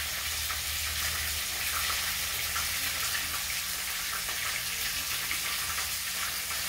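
Breaded fish frying in hot oil in a pan: a steady sizzle with light crackling.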